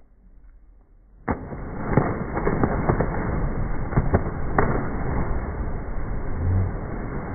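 Many people plunging into a lake at once: a sudden burst of splashing about a second in, several sharp smacks on the water over the next few seconds, then a steady churning wash of water.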